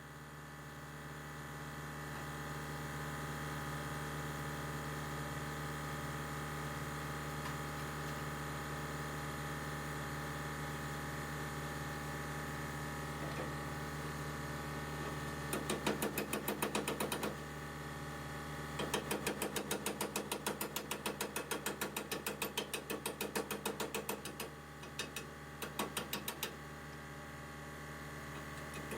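A steady mechanical hum, like a small motor running, with two stretches of fast, even clicking or rasping over it, the second lasting several seconds: metal being worked on a vehicle brace.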